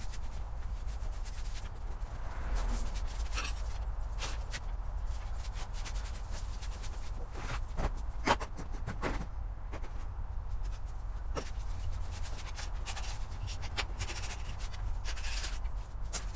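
Cloth rags rustling as they are laid over a motorcycle's fuel tank, with scattered light clicks and knocks of hands and parts being handled.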